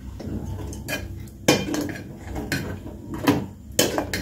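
A steel ladle stirring a thin sago and vermicelli mixture in an aluminium pot to dissolve the sugar, knocking and scraping against the pot several times at irregular intervals. A steady low hum runs beneath.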